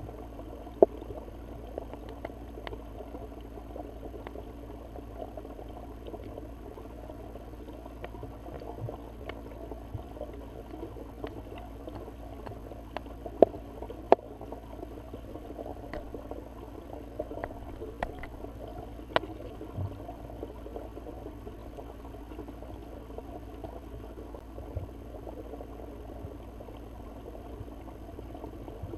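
Underwater sound: a steady low rush of water, with scattered sharp clicks and taps, the loudest a little under a second in and twice around 13 to 14 seconds in, as the soft-plastic bass lure and its jig head hop on the silty bottom.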